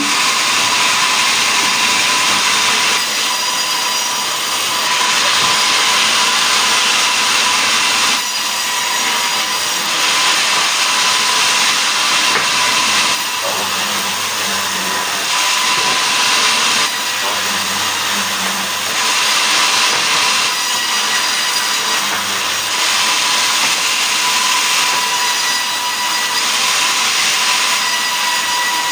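Sawmill machine sawing a mahogany log into boards: a loud, unbroken mechanical noise with a steady whine, its cutting sound shifting every few seconds.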